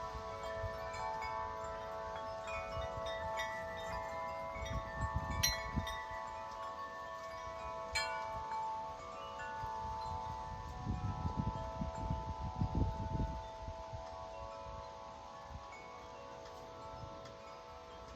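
A 50-inch Corinthian Bells wind chime ringing in gusty wind, its tubes holding several overlapping tones, with a couple of sharper strikes in the first half. Wind gusts rumble on the microphone, strongest a little past the middle, and the ringing slowly fades near the end.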